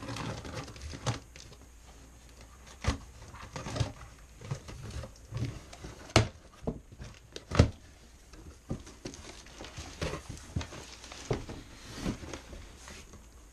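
A taped cardboard box being opened by hand: packing tape pulled and torn from the seam, then the cardboard flaps folded back, giving irregular scrapes, rustles and taps, with two sharper cracks a little past the middle.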